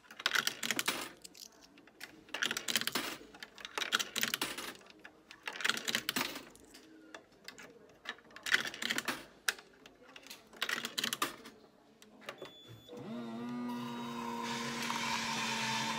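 Coins and hands clattering at a hot-drinks vending machine's coin slot, with irregular clicks and rattles. About 13 seconds in, a brief beep, then the machine's motor starts with a short rising whine that settles into a steady hum as it begins dispensing the drink.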